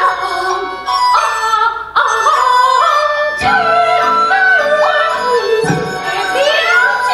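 Kunqu opera music: an ornamented, wavering melody with a bamboo flute accompaniment, and a single sharp knock about three and a half seconds in.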